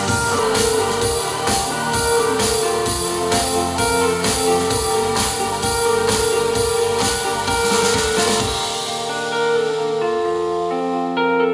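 A song with a steady drum beat and guitar, played back through a portable Bluetooth speaker; near the end the drums and bass drop out, leaving held notes.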